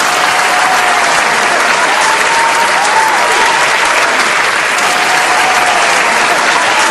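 Loud, sustained applause from a large audience: many people clapping together in a dense, even clatter.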